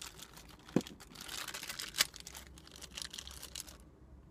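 Toy figure packaging being opened by hand: crinkling and rustling with two sharp clicks, about a second in and two seconds in, dying away shortly before the end.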